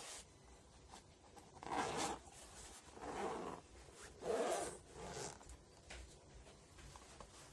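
Zipper of a small hard-shell carry case being pulled open around its edge in four short rasping pulls, the third the loudest.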